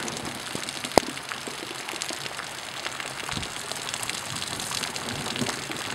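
Flash-flood runoff rushing down a street in the rain, a steady hiss of water with scattered small ticks of cobbles knocking along in the flow. A single sharp click about a second in.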